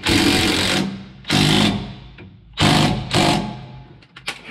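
DeWalt impact wrench hammering sway bar bracket bolts tight in several short bursts.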